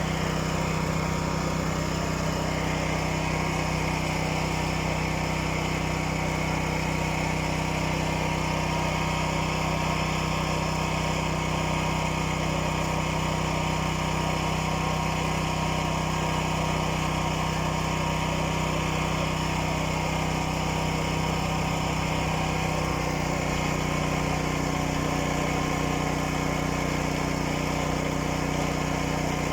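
Portable generator engine running steadily at a constant speed.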